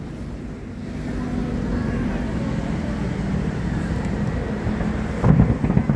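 Aerial fireworks: a steady low rumble of bursts, then a cluster of loud booms about five seconds in.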